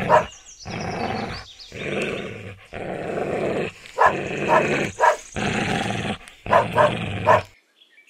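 Dog growling in long stretches, with short sharp barks breaking in about four seconds in and again near the end.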